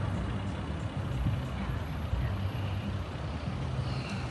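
Steady low rumble of a motor vehicle running, with a faint short high tone near the end.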